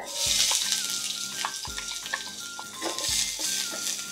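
Diced onion hitting hot oil in a hammered wok, sizzling loudly at once and frying steadily while a wooden spatula stirs it. Light background music with a soft regular beat runs underneath.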